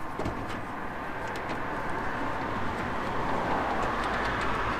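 Steady rushing background noise, like distant traffic, slowly growing louder with a low rumble underneath, and a few faint clicks near the start.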